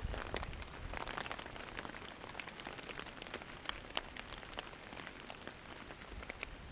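Rain falling, with many scattered drops ticking sharply on a nearby surface over a steady hiss.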